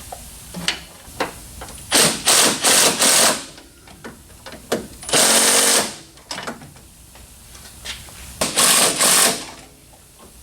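Impact wrench hammering in short bursts as it runs down and tightens sway bar end link nuts: a quick run of four bursts about two seconds in, one longer burst around five seconds, and two more near the end.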